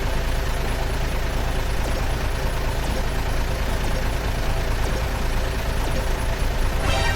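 Dump truck's diesel engine running steadily, with a short clatter near the end.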